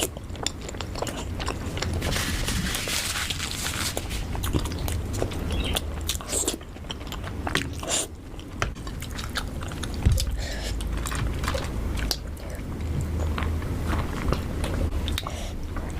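A person eating close to the microphone: repeated crunchy bites and chewing, with a steady low hum underneath.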